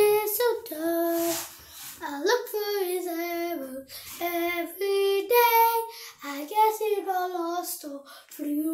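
A young girl singing unaccompanied, a string of held notes that step and slide between pitches with short breaks between phrases.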